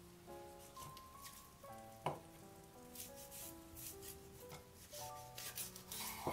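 A cleaver scrapes and cuts raw chicken thigh meat away from the bone on a wooden cutting board. The blade knocks sharply on the board about two seconds in and again near the end. Quiet melodic background music plays throughout.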